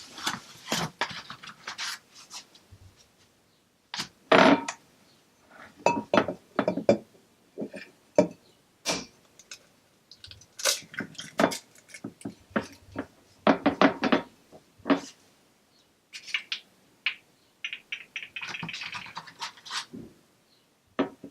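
Kitchen clatter: irregular knocks and thunks of dishes and utensils handled on a countertop, with a short scrape near the end.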